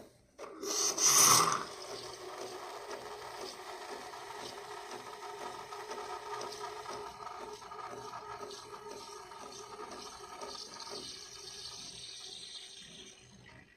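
Nespresso milk-and-coffee machine making a cappuccino. A short loud hiss comes about a second in, then the machine's pump runs steadily with a fast pulsing and liquid running into the cup, and it stops shortly before the end.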